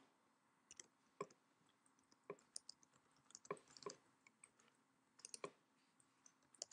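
Faint, irregular clicks of typing on a computer keyboard, a few keystrokes at a time with short gaps between them.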